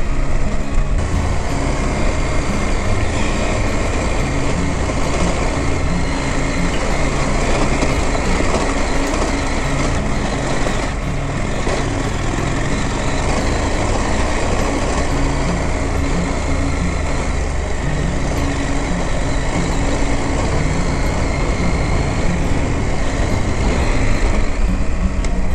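KTM 890 Adventure's parallel-twin engine running steadily under way on a rocky dirt track, with wind and road noise over it.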